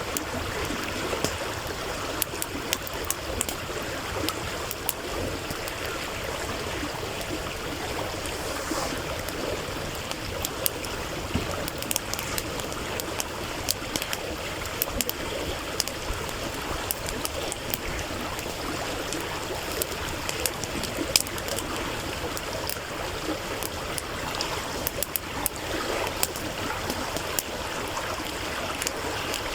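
Stream water murmuring steadily, with a wood campfire crackling over it in frequent sharp, irregular pops.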